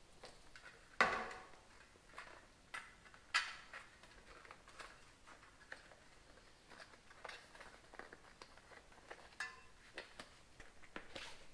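Small metal tools and bicycle parts being handled during reassembly: scattered light clinks and taps, with two louder ringing clanks about a second in and again about three and a half seconds in.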